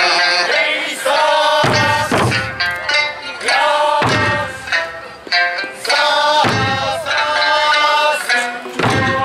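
Traditional Okinawan Eisa music, a sung folk melody, with the performers' large barrel drums (ōdaiko) struck together in heavy beats about every two and a half seconds, four times.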